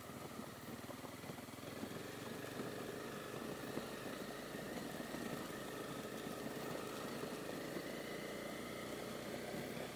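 Honda CB250R's single-cylinder engine running steadily at low speed on loose gravel, mixed with road and tyre noise, heard from the rider's helmet.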